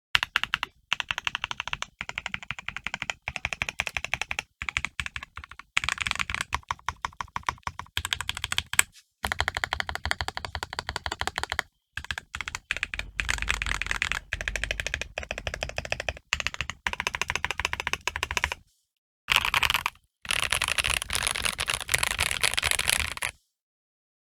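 Custom Ikki68 Aurora mechanical keyboard (FR4 plate, brass weight, lubed Boba U4T stems in T1 housings, GMK Ishtar keycaps) being typed on in quick bursts of keystrokes with short pauses between. The first part is the modifier keys; from about 19 seconds in it is the letter keys, which stop abruptly near the end.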